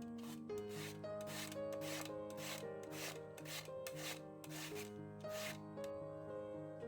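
Rhythmic rasping strokes, about two a second, of winter melon being shredded on a hand grater. The strokes stop about five and a half seconds in, over background music.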